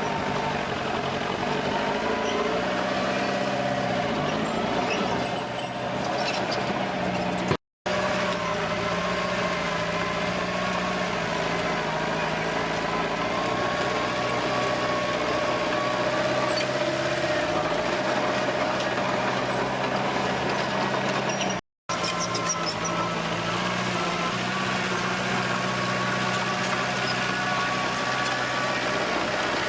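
Komatsu D21P bulldozer's diesel engine running steadily under working load, its pitch dipping and rising a few times as the throttle and load change. The sound breaks off twice for an instant.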